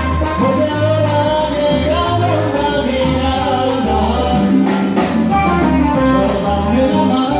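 Live salsa band playing, with congas, keyboard and guitar over a steady bass pulse.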